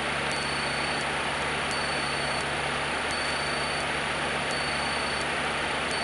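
Cessna 152's four-cylinder Lycoming O-235 engine and propeller running at a steady cruise, heard inside the cockpit as an even rushing noise over a low hum. A faint steady whine and light high ticks run through it.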